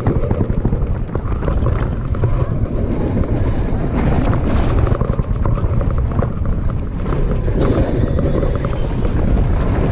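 Steel roller coaster train plunging down its drop and running through the track at speed, recorded by an on-ride camera. Heavy wind rushing over the microphone blends with the train's rumble into a loud, steady roar.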